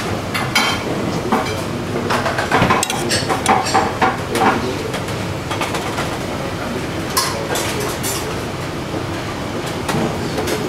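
Metal spoon and shellfish clinking against a copper sauté pan and a china plate during plating: a run of light clinks and knocks in the first half, densest about two to four seconds in, and one more about seven seconds in, over a steady background rumble.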